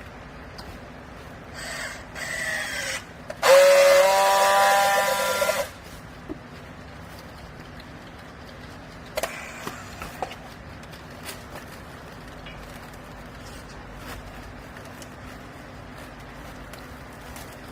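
Hydraulic baling press running with a steady hum, and a loud, pitched squeal of about two seconds a few seconds in, followed later by a few sharp knocks.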